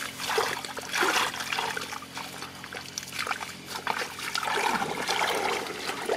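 Hands working through shallow muddy water and wet mud: irregular sloshing and small splashes, with water trickling, as the mud is groped through by hand for fish.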